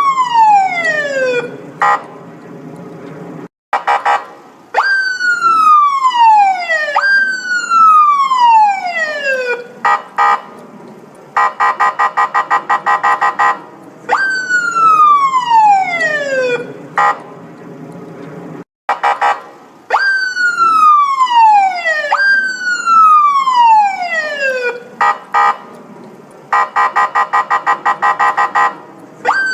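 Electronic police siren sounding in a repeating cycle: falling wails that jump up and slide down in pitch over about two and a half seconds each, broken twice by a few seconds of a fast pulsing tone.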